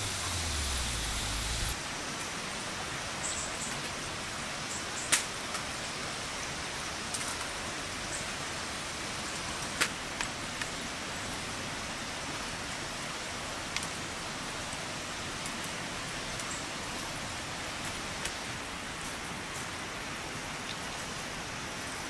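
A few sharp taps as fried chicken drumsticks are set down on a metal tray, against a steady hiss.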